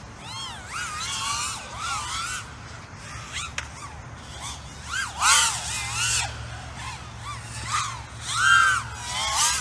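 Racing quadcopter with Cannonball 2406 2020kv brushless motors on a 6S pack, whining as it flies the gate course. The pitch sweeps up and down with each throttle punch and pass, loudest about halfway through and again near the end, over a steady low hum.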